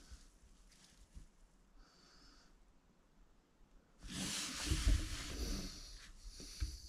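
Clothing rustle and handling noise as the shooter shifts his hand from the scope to the rifle's grip, starting about four seconds in and lasting about two seconds, with a few dull bumps. Before it, only faint breaths.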